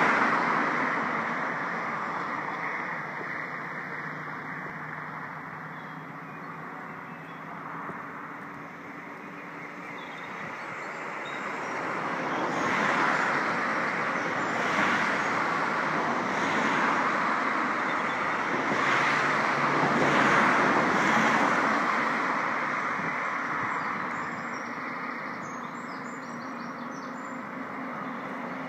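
Steady distant vehicle noise that swells louder for several seconds in the middle, then eases. A low steady drone comes in near the end.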